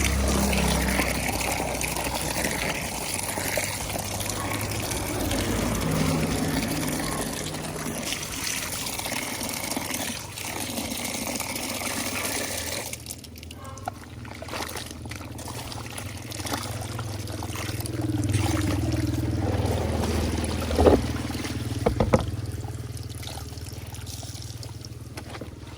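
Water running and pouring steadily, cutting off about halfway through. Quieter handling sounds follow, with a few sharp knocks.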